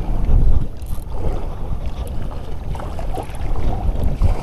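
Wind buffeting the microphone in a steady low rumble, with choppy sea water splashing against a small boat.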